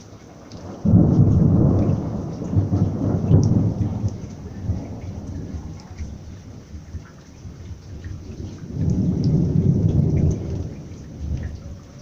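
Thunder: a sudden loud crack about a second in that rumbles on for several seconds and fades, then a second long rumble near the end, over steady rain with dripping.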